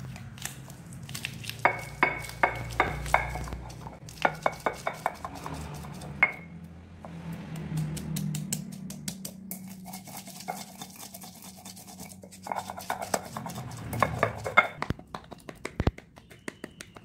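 Stone pestle knocking and grinding on a stone mortar (cobek), crushing garlic, coriander seeds and ginger into a spice paste: runs of sharp knocks about three a second, with a rough scraping grind in between. Near the end, a few light clicks of a metal fork pricking raw beef on a plate.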